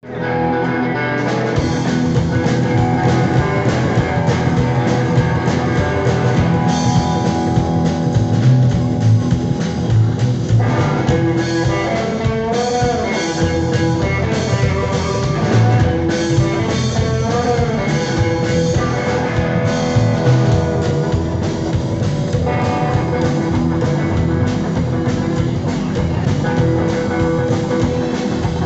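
A live rock and roll band playing an instrumental passage: upright double bass and drum kit driving a steady beat, with electric guitar lines and a few bent notes near the middle.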